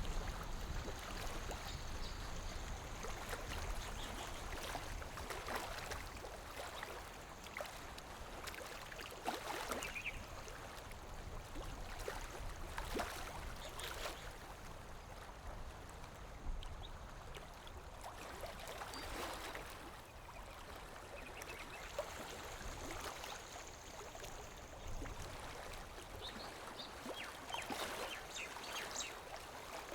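Lake water gently lapping at the shore: small irregular splashes and gurgles over a soft steady wash.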